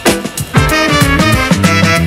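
Upbeat background music with a steady beat and brass-like melody, in a Latin dance style.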